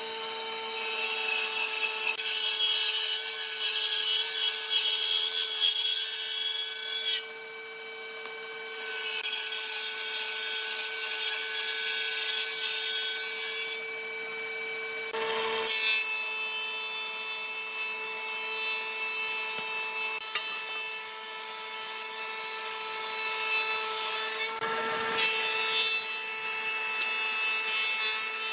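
Electric power tool working pallet wood: a steady motor whine under rasping, sawing-like noise, with brief changes about 7, 15 and 25 seconds in.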